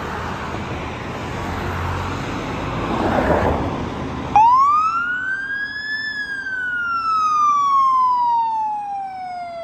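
A fire engine's siren starts up about four seconds in with a single wail that rises quickly and then falls slowly and steadily, cut off at the end. Before it there is the noise of a passing car and the truck pulling out.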